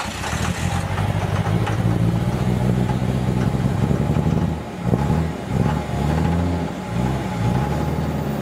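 A vehicle engine running steadily, its pitch dipping and rising again a few times past the middle.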